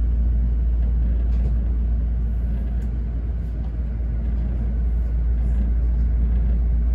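Running noise inside a JR East E217-series Green car: a steady low rumble as the train moves slowly alongside a station platform.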